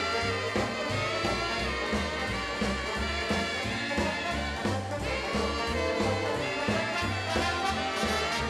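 Upbeat swing-style background music with brass instruments over a steady, pulsing bass line.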